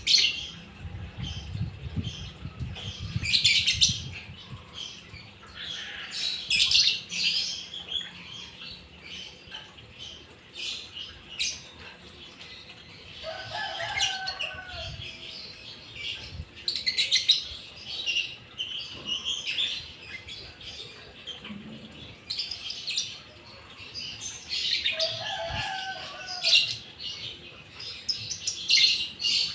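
White-eyes chirping again and again in short high notes, with wings fluttering. Twice a lower, falling call stands out, around the middle and near the end.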